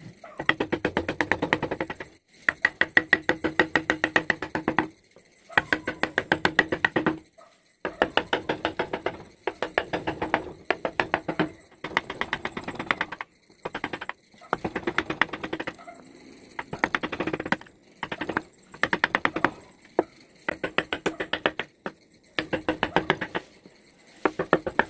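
Background music with a fast, tapping percussive beat, playing in phrases of one to three seconds with short breaks between.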